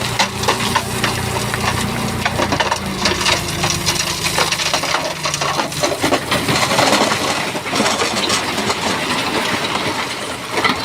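A load of stone and soil sliding and tumbling, a dense run of crunches and clatters as rocks knock together. A heavy machine's engine runs low underneath for the first half, then fades.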